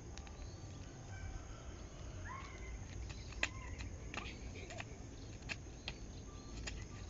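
A child hopping on one foot in flip-flops on an asphalt road: scattered sharp slaps and taps, the loudest about three and a half seconds in, over a low steady rumble.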